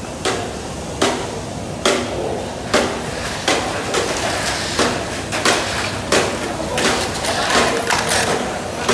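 Tamiya Mini 4WD cars running on a plastic racing track: a steady high hiss with sharp plastic clacks, about one a second at first and more often later.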